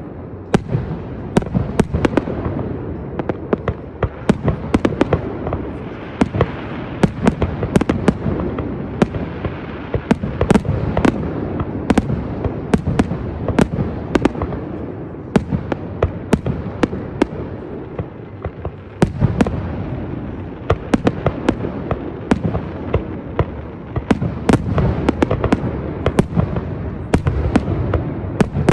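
Fireworks display: a continuous barrage of shells bursting, many sharp bangs a second over a steady rumble of overlapping explosions, with brief lulls about four and nineteen seconds in.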